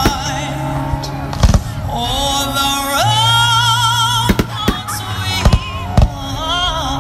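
Aerial firework shells bursting, with about five sharp bangs, one about a second and a half in and the rest in the second half. Music with a singer's voice plays loudly behind them.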